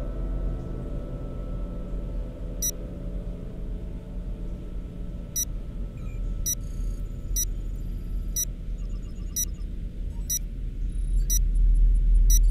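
Electronic sci-fi sound design: a steady low drone with short, high electronic blips that come closer and closer together, the drone swelling louder near the end.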